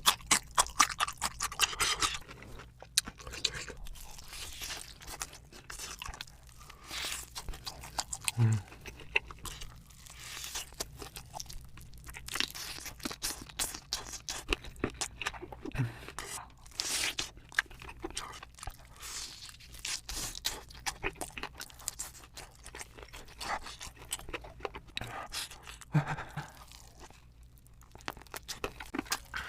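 A person eating spicy chicken, biting and crunching through it and chewing with wet mouth sounds, in irregular bursts.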